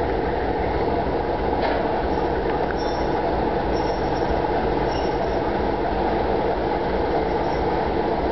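Baldwin steam-locomotive tender rolling slowly on the rails in a shunting move, a steady low rumble. A few faint high wheel squeals come in the middle.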